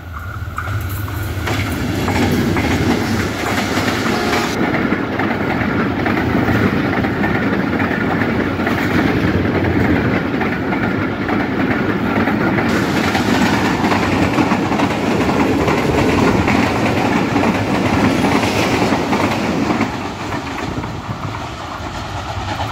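Express passenger train passing at speed, led by a ZCU30 diesel-electric locomotive and followed by a long rake of coaches. Wheels clatter over the rail joints in a steady loud rush that builds within the first two seconds and eases about twenty seconds in.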